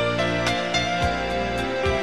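Music with a steady beat: drum hits about twice a second under sustained melodic notes and a bass line.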